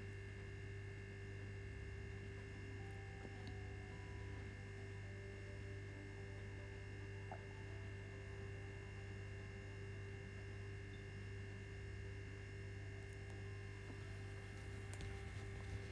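Faint steady electrical hum with a few thin steady tones above it, and a few faint ticks near the end.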